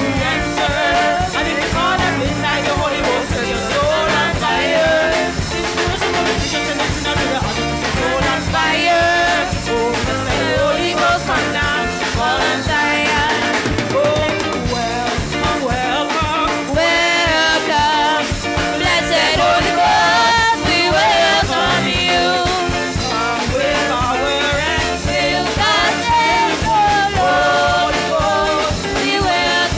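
Live gospel praise and worship music: women's voices singing into microphones over a band with a drum kit.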